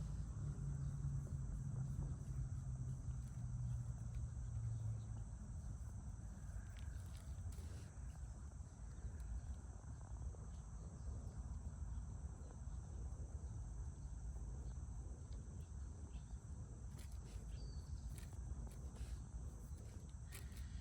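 Steady high-pitched insect trilling over a low outdoor rumble, with a few faint clicks. A low hum fades out about five seconds in.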